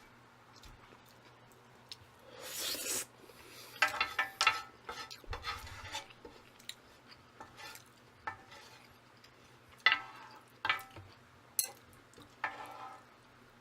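Close-miked eating of jjajang instant ramen with a spoon: scattered clicks and scrapes of the spoon against the bowl between short noisy mouthfuls, with brief pauses in between.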